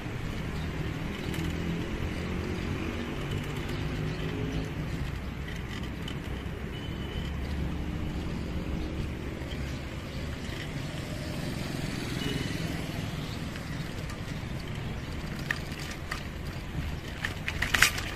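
Steady low hum of motor traffic, an engine's pitch rising and falling now and then. Near the end a quick cluster of sharp clicks stands out.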